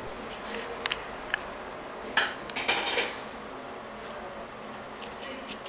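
A string of light clicks and clinks of hard objects being handled, the loudest cluster about two to three seconds in, over a steady hiss.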